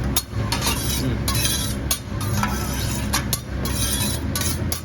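Metal spatula clinking and scraping on a hibachi griddle, several sharp clinks, over sizzling and a steady low hum.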